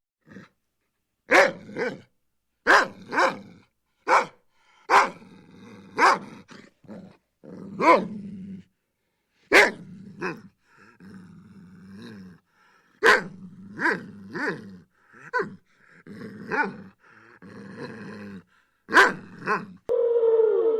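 A dog barking over and over, single and double barks about a second apart, with a quieter low growl between some of them.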